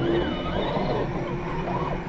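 Electric motor and geared drivetrain of a scale RC double-cab Hilux crawler whining as it climbs loose sand, the pitch rising and falling several times as the throttle is worked.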